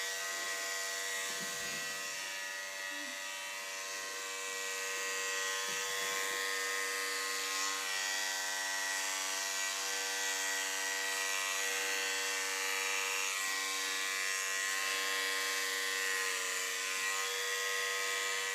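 Electric hair clippers buzzing steadily while cutting a toddler's hair. The pitch dips briefly near the end.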